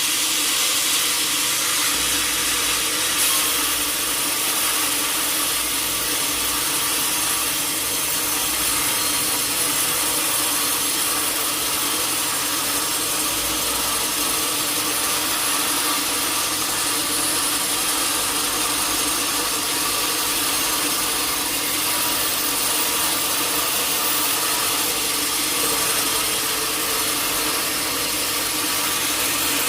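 Sawmill saw cutting through a teak log: a steady hiss of the blade in the wood over a steady machine hum, going on without a break.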